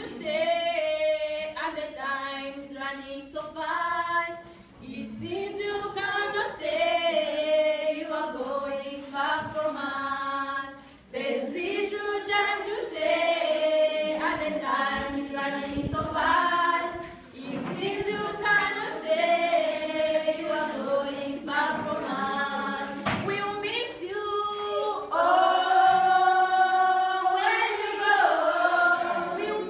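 A group of girls singing a goodbye song together without accompaniment, in sung phrases with short pauses between them.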